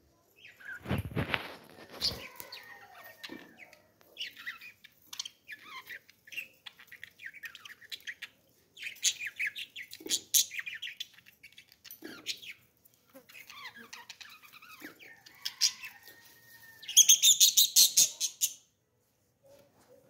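A flock of caged budgerigars chirping and chattering, with short, scattered high calls and a loud run of rapid chirps near the end. A low thump about a second in.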